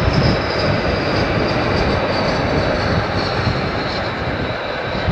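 Jet airliner engines running steadily: an even rushing noise with a faint high whine above it.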